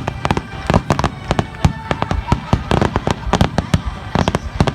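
Fireworks bursting in a rapid barrage, with many sharp bangs each second overlapping one another.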